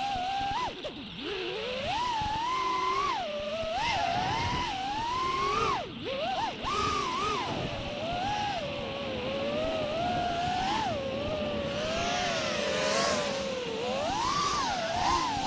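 5-inch FPV freestyle quadcopter's brushless motors and propellers whining, the pitch swinging up and down constantly with the throttle, over a rush of air. The sound drops off briefly about one second in and again around six seconds, where the throttle is chopped.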